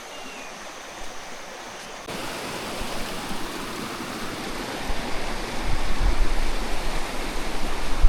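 Rushing river water. It jumps louder about two seconds in and keeps swelling, with low rumbling underneath from about five seconds on.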